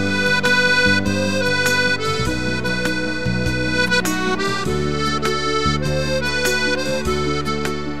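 Piano accordion playing a tune, a quick melody of separate notes on the keyboard over held bass and chord notes that change about every second.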